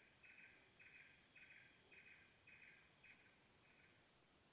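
Faint insects calling: a rasping pulse at about two a second that stops about four seconds in, over a steady high whine.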